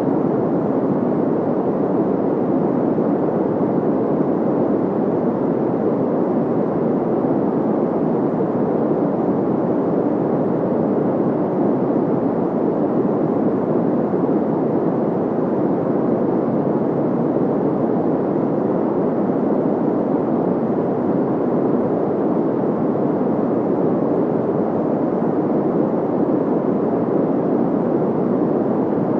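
Steady, unchanging white noise sound effect, filtered so that it sounds dull and muffled: a deep, even hiss with little high-pitched sizzle.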